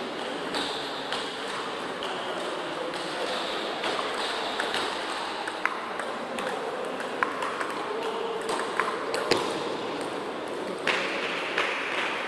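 Table tennis rally: the plastic ball clicking sharply off the bats and the table, about one hit a second, over steady background noise.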